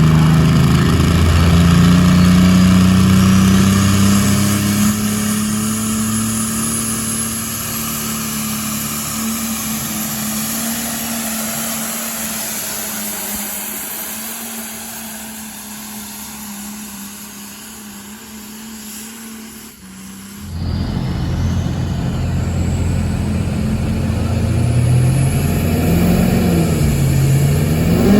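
A diesel engine pulling hard, its pitch climbing at first, then fading slowly over about twenty seconds as the vehicle moves away. After a sudden break, another diesel engine runs loud and revs, its pitch dipping and then rising near the end.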